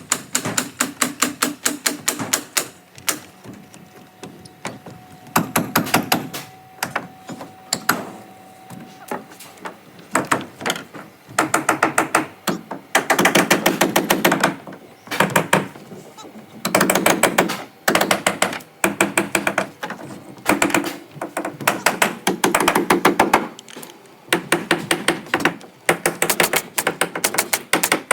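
Nail gun firing in rapid bursts, a run of sharp clicks about ten a second, stopping and starting again every second or two.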